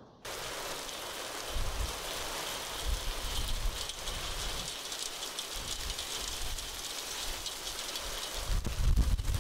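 Heavy rain pouring down in a rainstorm: a dense, steady hiss that starts abruptly. Low rumbling swells come in about a second and a half in and again near the end.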